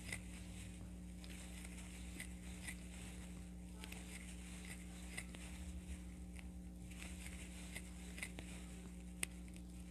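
Crochet hook working yarn: faint, scattered clicks and rustles as a stitch is worked into each stitch in turn, over a steady low hum.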